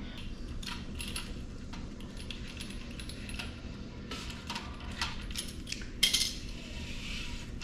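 Spline roller tool pressing rubber spline into the channel of a metal screen-door frame: faint scraping with scattered small clicks, and a sharper click about six seconds in.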